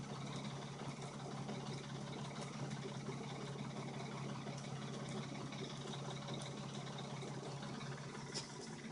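Dodge Intrepid engine idling steadily with scattered faint ticks over the hum. The owner takes the noise for the timing chain.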